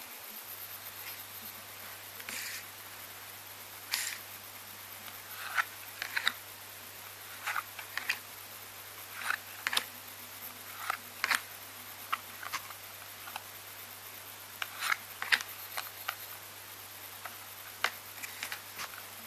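Trading cards being handled and flipped through one at a time, with irregular soft clicks and card snaps every second or so over a steady background hiss.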